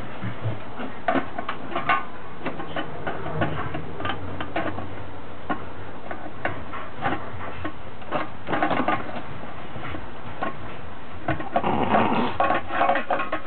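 Puppy licking inside an empty metal can, the can clicking and clattering irregularly, with busier bursts around nine and twelve seconds in.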